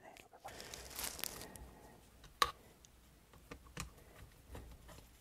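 Brief rustling, then a sharp click about two and a half seconds in and a few fainter taps: small SU carburettor parts being handled and set down during reassembly.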